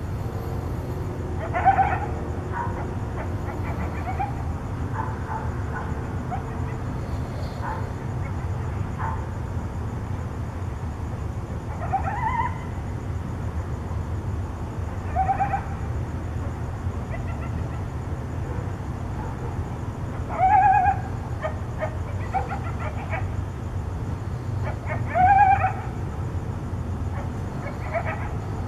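Coyotes contact calling: scattered short yips and howls, each under a second, a few seconds apart, loudest about two seconds in and again near 20 and 25 seconds. A steady low hum runs underneath.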